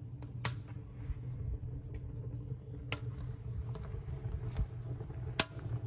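A steady low machine hum with a few sharp clicks over it: one about half a second in, one about three seconds in, and the loudest near the end.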